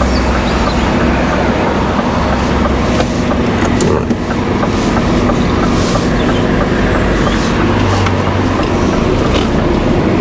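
Heavy goods vehicle's diesel engine running as the truck drives off, with steady road noise and a few knocks and rattles.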